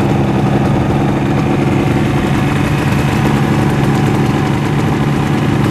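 1975 Yamaha RD250's two-stroke parallel-twin engine idling steadily.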